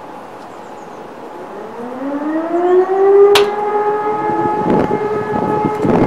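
Hörmann E57 electromechanical civil-defence siren winding up for a test alarm: its tone rises in pitch over a second or two and settles into a loud, steady wail. Crackling wind noise hits the microphone near the end.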